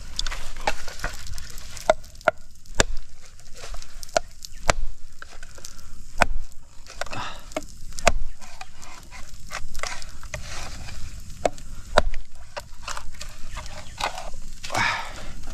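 Wood cooking fire with irregular sharp cracks and knocks as a long stick prods at it.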